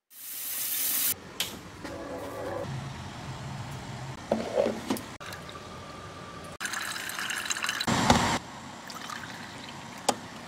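Coffee being brewed and poured into a ceramic cup: liquid filling and trickling, with a few short knocks and a louder burst of noise about eight seconds in.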